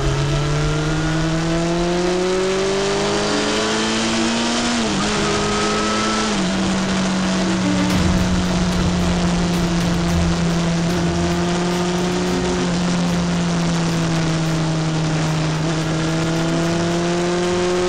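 Motorcycle engine running under way. It rises in pitch for the first few seconds, drops about five seconds in, then holds a near-steady pitch while cruising, with wind rushing over the microphone.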